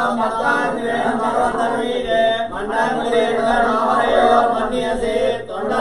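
Male voices chanting Hindu temple mantras, a continuous steady recitation.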